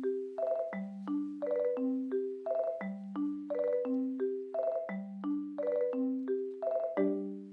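Background music: a light tune of short, ringing, mallet-struck notes, repeating the same short phrase about every two seconds and fading out near the end.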